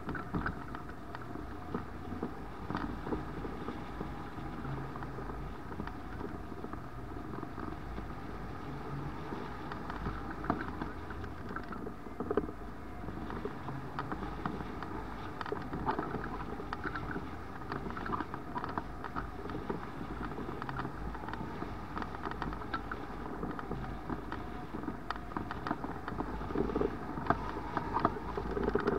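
Wind rushing over the microphone of a wing-mounted camera on a hang glider in soaring flight. The noise is steady, with scattered light ticks and knocks.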